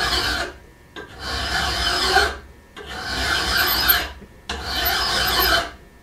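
Large file drawn across a tooth of a carbon steel dado chipper held in a bench vise, in four strokes of about a second each. The strokes ring and chatter because the cutter sits too high in the vise and vibrates under the file.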